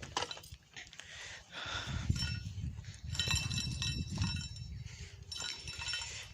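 Metal tools and parts clinking and clanking against each other in several short clusters, the strikes ringing briefly, over a low rumble of handling.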